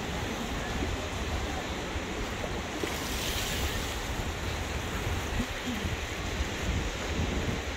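Ocean surf washing with wind buffeting the microphone: a steady rushing noise over a low rumble, with a brief brighter hiss about three seconds in.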